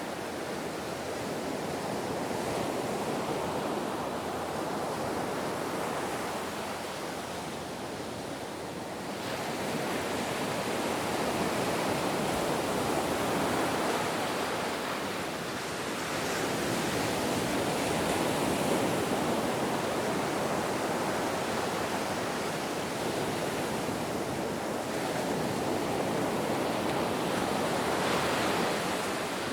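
Ocean waves breaking and washing up on shore, a continuous rush of surf that swells and eases in slow surges every several seconds.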